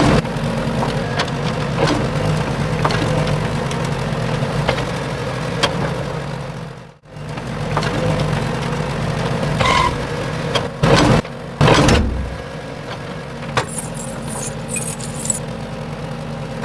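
A motor or engine running with a steady, even hum. It cuts out abruptly for a moment about seven seconds in, then resumes, with two short louder bursts about two-thirds of the way through.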